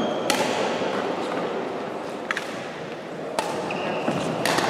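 Badminton racquets striking shuttlecocks: four sharp, separate hits spread over a few seconds, over the steady background noise of a sports hall.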